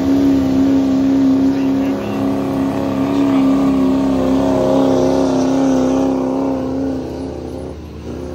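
Diesel pickup truck engine running at steady high revs under load, pulling a weighted sled. It holds one strained pitch, then fades away near the end.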